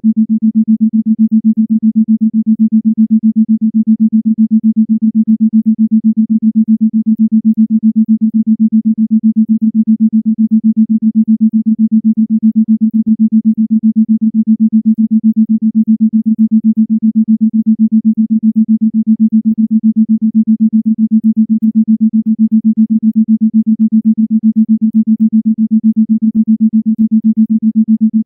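Isochronic tone: a single low-pitched synthesized tone switched on and off in rapid, evenly spaced pulses.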